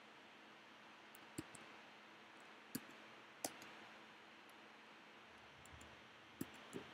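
A few faint, isolated computer keyboard key clicks, about five spread unevenly, over near-silent room hiss.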